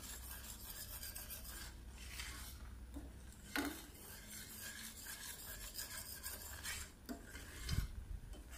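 Metal spoon stirring and scraping thick, reduced milk (khoa) around a steel pan: a soft, steady rasping rub, with a light knock against the pan about three and a half seconds in and a dull thump near the end.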